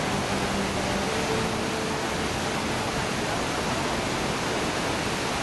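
Kjosfossen waterfall crashing down the rock face: a steady, dense rush of falling water at close range. A faint low held tone sits under it for the first two seconds or so.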